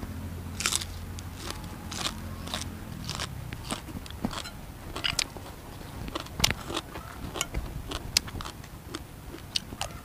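A person biting and chewing crisp raw vegetables close up, with sharp irregular crunches all through, the loudest about six and a half seconds in.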